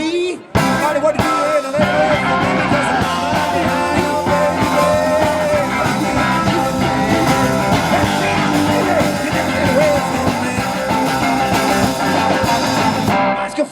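Live rock-and-roll band playing an instrumental passage led by electric guitar, the full band coming in loud about half a second in.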